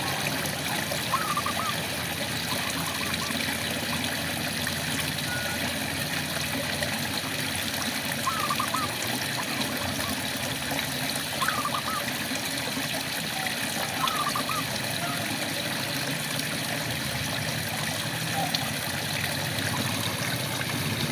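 Steady rain falling, with a frog giving short calls of a few quick notes every few seconds.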